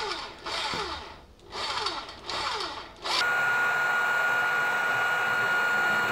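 Four short rasping strokes of hand work on the outboard's gearcase, each falling in pitch. About three seconds in, they give way to an outboard motor running steadily in a water test tank, with a constant high whine and the telltale jet of cooling water splashing into the tank, a sign that the water pump is working.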